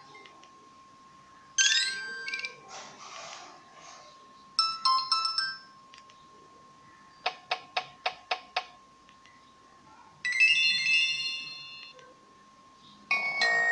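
Nokia 2600 mobile phone ringtones played one after another with short pauses: a rising melodic run, a brief jingle, a string of about seven quick identical beeps, then a chord-like tune. A faint steady high tone sits underneath.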